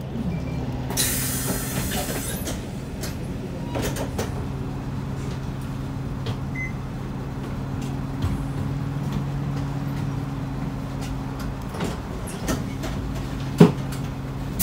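Isuzu Erga city bus's four-cylinder diesel idling steadily, heard from inside the cabin, with a burst of compressed-air hiss about a second in. Small rattles and clicks run through it, and there is a single sharp clunk near the end.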